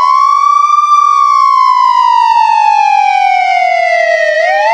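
Police car siren wailing. Its pitch peaks about a second in, falls slowly for about three seconds, and starts rising again near the end.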